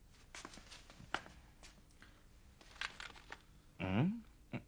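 Soft, scattered clicks and rustles of someone moving. About four seconds in comes a short wordless voice sound whose pitch dips and then rises.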